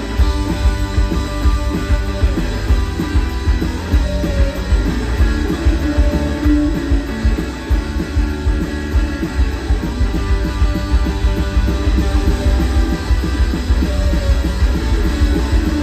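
Rock music without vocals: electric guitar over heavy bass and a steady beat.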